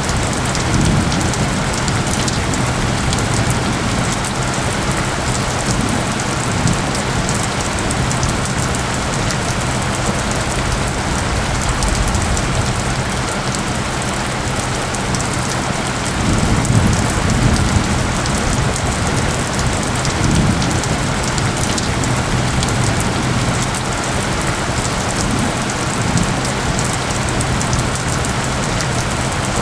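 Steady, dense rainfall with a low, steady tone layered underneath, and a few low rumbles of thunder swelling up, the largest about halfway through.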